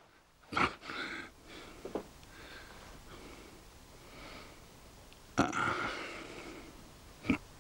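A man breathing out heavily in breathy sighs, the longest about two-thirds of the way through. A few small clicks of handling come in between.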